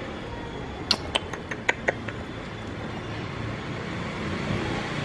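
A quick run of about six or seven sharp metallic clinks with a brief ring, about a second in, over a steady background hum.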